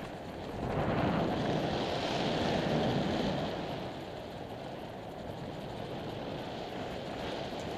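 Steady wind rushing over the microphone of a smokejumper's camera during a parachute descent, swelling about a second in.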